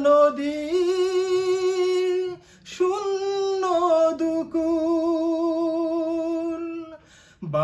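A man singing an unaccompanied Bengali Islamic gojol, drawing out two long held notes with a wavering ornament. The first note steps up in pitch after the first second. A short pause for breath comes between the notes and another near the end.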